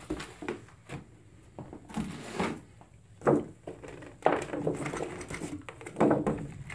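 Plastic-wrapped tool trays from a Kobalt 300-piece tool set being pulled out of their cardboard box and handled: several short bursts of scraping, rustling wrap and light knocks.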